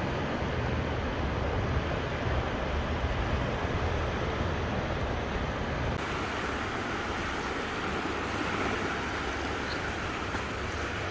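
Small, calm sea waves washing ashore with steady wind. A low wind rumble on the microphone in the first half gives way to a brighter surf hiss about six seconds in.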